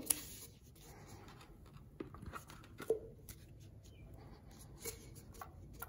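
A few faint, sparse clicks and light taps of hands handling things around a plastic gold pan.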